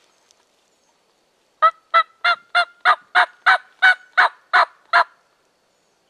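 A series of about eleven loud turkey yelps, evenly spaced at about three a second and lasting some three and a half seconds.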